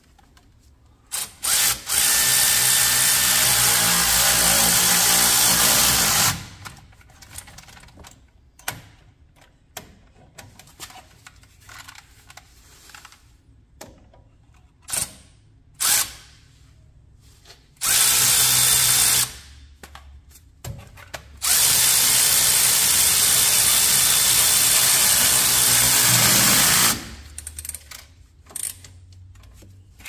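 Battery-powered ratchet running bolts in, in a few stop-start runs: two long runs of about four and five seconds, a shorter one, and several quick blips between them.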